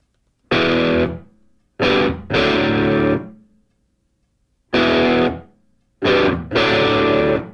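Intro music: distorted electric guitar chords struck in short groups, each left to ring and die away, with silent gaps between them.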